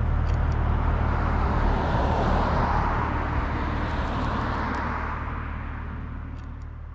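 Steady low engine and road drone of a moving Jeep, with a swell of tyre noise about two to three seconds in. The sound fades out gradually over the last few seconds.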